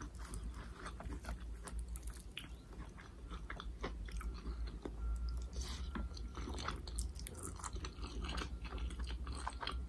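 Close-miked mouth sounds of someone eating Samyang spicy instant noodles with vegetables: irregular wet chewing and biting with occasional crunches, over a low steady hum.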